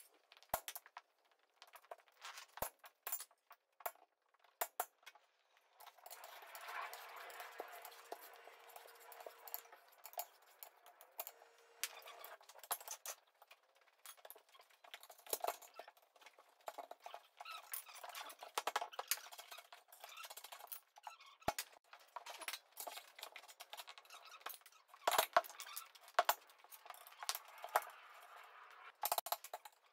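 Scattered metallic clinks and knocks of steel tyre levers and bars working against a steel wheel rim as a large tractor tyre is levered off by hand, with a stretch of steadier scraping noise from about six to thirteen seconds in.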